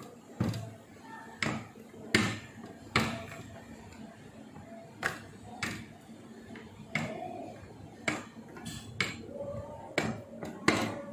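Rolling pin worked back and forth over dough on a plastic board, its plastic sleeve and handles knocking and clacking against the board at irregular intervals.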